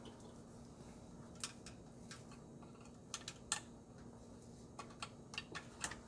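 Faint, irregular light clicks and rattles of plastic wire-harness connectors being handled and plugged onto a gas range's electronic clock control board, with a faint steady hum underneath.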